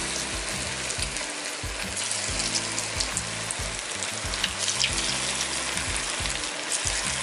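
Marinated paneer pieces deep-frying in hot oil in a kadai: a steady, even sizzle dotted with fine crackles.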